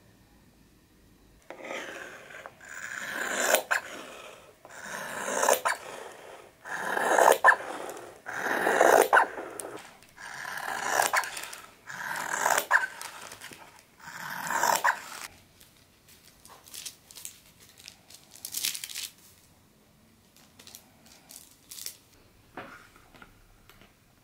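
Fabric shears cutting through layered fabric in about eight long, crunching strokes, each ending in a sharp snip of the blades. After about 15 s only light clicks and rustles of handling remain.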